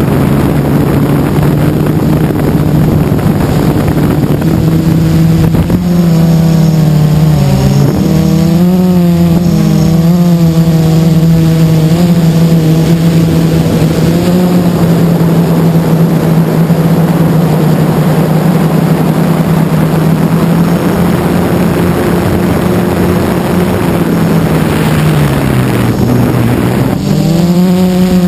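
Blade 350QX quadcopter's four brushless motors and propellers whining in flight, heard from the camera on its own mount. The pitch wavers as the throttle changes, sags about three seconds before the end and climbs again just before it.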